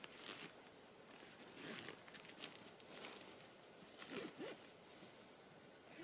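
Near silence, with a few faint scattered rustles and small clicks.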